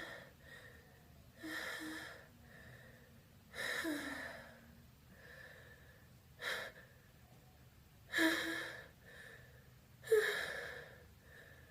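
A person breathing in sharply five times in a row, gasping and wheezing with a faint voiced edge: the hitching breaths of a sneeze building up. The last, about ten seconds in, is the sharpest and loudest.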